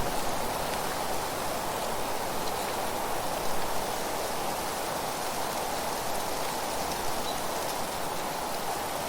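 Steady rustling of wind through leaves, an even hiss without pause.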